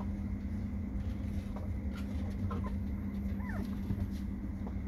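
Three-week-old beagle puppies giving a few faint, short whimpers around the middle, over a steady low hum.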